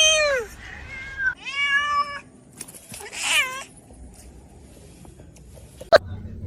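Domestic cat meowing: three calls in the first four seconds, the first sliding down in pitch. A single sharp click comes near the end.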